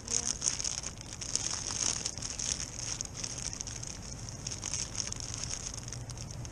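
Clear plastic bag crinkling and rustling as hands work a packet out of it, busiest in the first couple of seconds and then thinning to scattered crackles.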